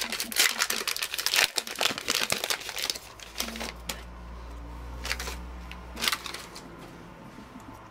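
Baseball trading cards being shuffled through by hand, card stock sliding and flicking against card. A quick run of rustles and flicks for the first three seconds or so, then a few softer slides.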